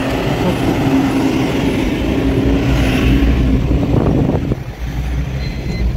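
Truck engine running with a low rumble and a steady drone that stops about four and a half seconds in.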